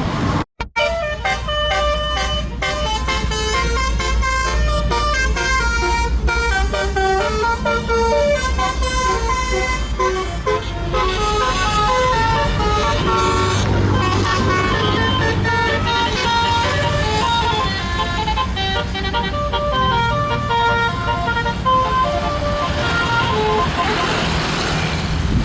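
Tour bus's multi-tone 'telolet' horn playing a long, quick run of melodic notes that step up and down over the low rumble of the bus engine, with a brief dropout near the start.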